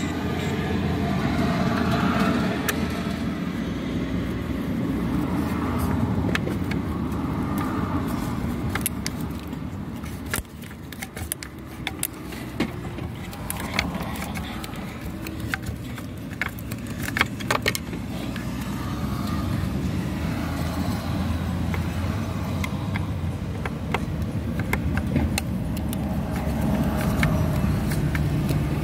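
Screwdriver clicking and clinking against metal while the MAP sensor screws are worked loose, a cluster of sharp clicks around the middle, over a steady low rumble.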